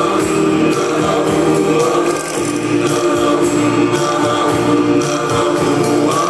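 Schlager song intro: sustained choir-like backing voices over a steady beat.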